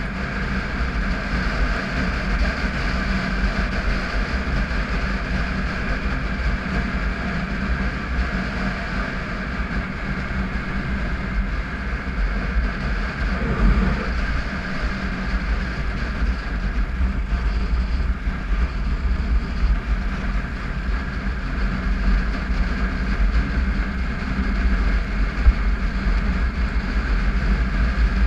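Triumph Tiger 955i's three-cylinder engine running steadily at road speed on gravel, with a heavy low rumble of wind and tyre noise on the microphone.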